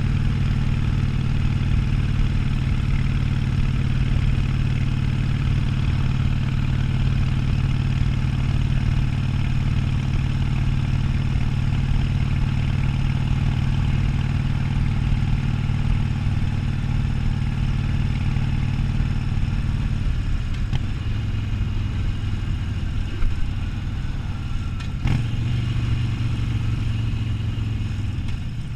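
Harley-Davidson Sportster 1200's air-cooled V-twin running steadily while riding. About two-thirds of the way through, the engine note drops lower as the bike slows. There is a short sharp click a few seconds before the end.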